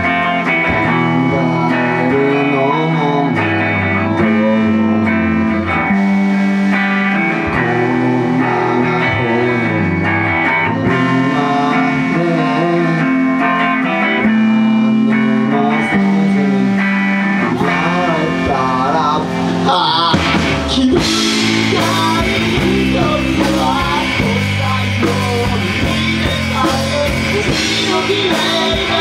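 Live rock band: electric guitar and bass guitar playing with a man singing. About twenty seconds in the music grows fuller and brighter as the rest of the band comes in.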